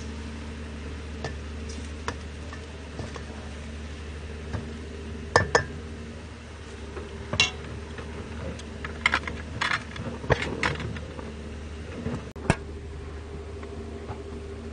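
A metal utensil clinking and scraping against a stainless steel pan of stir-fried pork in scattered sharp taps, busiest in the middle of the stretch, over a steady low hum.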